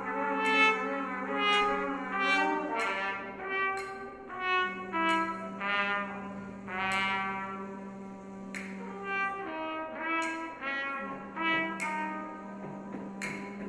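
Trumpets playing short, overlapping notes, about one or two a second, over a held low drone that drops out twice.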